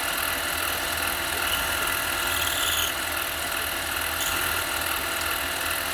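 Harbor Freight mini lathe running steadily at speed, its motor and drive giving a steady whine of several tones over a low hum.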